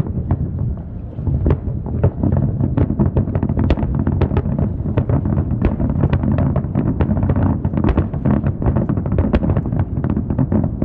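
Aerial fireworks shells bursting in a rapid barrage: a dense run of bangs and crackles, several a second, over a steady low rumble.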